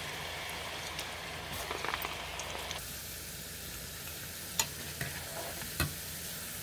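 Potato pakoda fritters deep-frying in hot oil in a steel kadai, a steady sizzle, with a few sharp clinks in the second half as a steel spoon stirs them.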